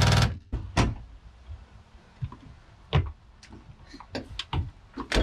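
A cordless power tool with a socket runs on a rear-seat bolt and stops just after the start. It is followed by a series of short plastic knocks and clunks as the seat trim panel and carpet are pulled loose.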